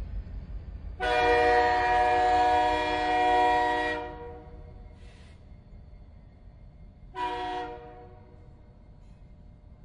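Train horn sounding a long blast of about three seconds, then a short blast about three seconds later, over the low rumble of a train.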